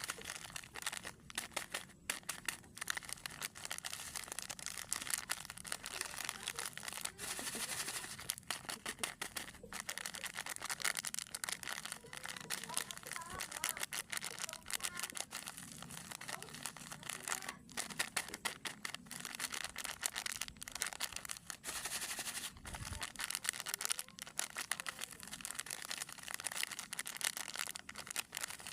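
Plastic snack wrappers crinkling and crackling as they are handled, with scattered sharp crackles throughout.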